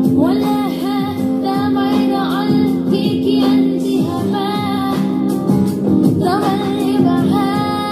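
A song with a woman singing over an instrumental backing, played on a JBL Go Essential portable Bluetooth speaker.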